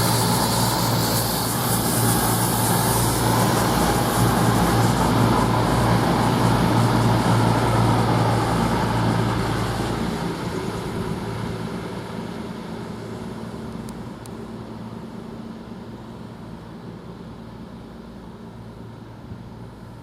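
CrossCountry Class 221 Super Voyager diesel multiple unit arriving, its underfloor diesel engines running loud and steady, then fading away over the second half as the train draws to a stop.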